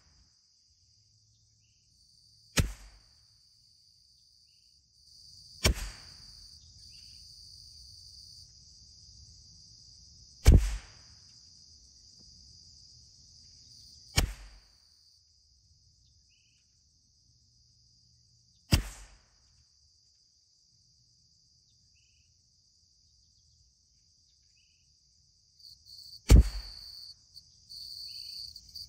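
Six single .22 LR rifle shots from a CZ 457 MTR bolt-action rifle, spaced a few seconds apart. Insects chirr steadily in the background.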